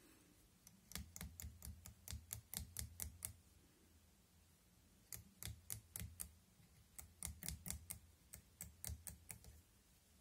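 Three quick runs of light, sharp clicks from fly-tying tools, a thread bobbin and vise, as thread is wound onto a small fly hook.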